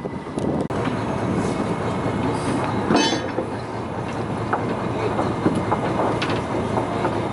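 Fishing boat's engine running steadily under a constant rhythmic clatter, with scattered small knocks from gear on deck and one louder sharp knock about three seconds in.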